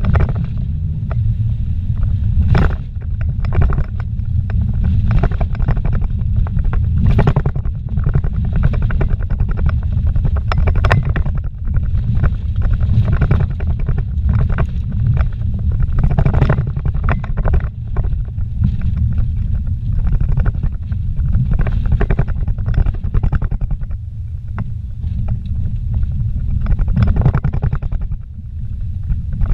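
Vehicle driving fast on a dirt road, heard from inside the cabin: a steady low rumble of engine and tyres on the gravel, with frequent irregular knocks as it goes over bumps.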